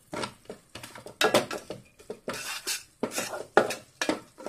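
A wooden spatula scraping and knocking against the sides and bottom of an aluminium pot in quick, irregular strokes, about three or four a second, as it stirs thick rice flakes in jaggery syrup.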